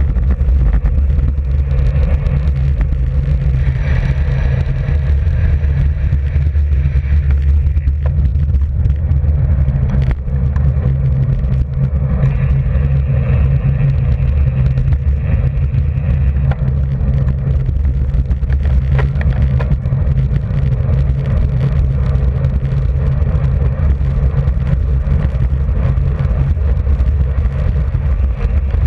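Wind buffeting the microphone of a camera mounted on a bicycle riding at speed: a loud, steady low rumble.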